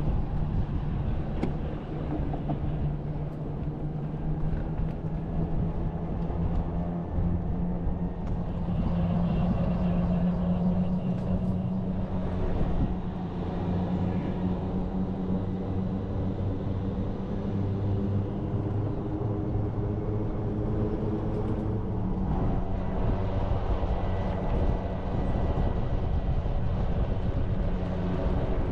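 Golf cart driving along a street, its motor giving a steady low hum with some road noise underneath.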